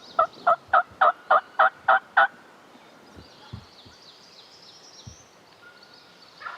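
Wild turkey yelping: a loud, evenly spaced series of about ten yelps, roughly four a second, that stops a little over two seconds in.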